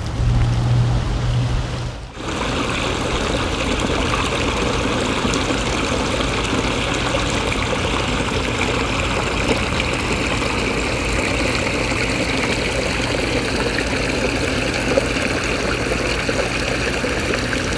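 Small waterfall spilling over a stone ledge into a garden pond: a steady rush and splash of falling water, which starts about two seconds in after a brief low hum.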